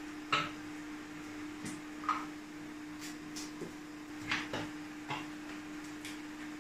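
Spice containers and their lids being picked up and handled beside the stove: about ten light clicks and knocks, scattered irregularly, over a steady low hum.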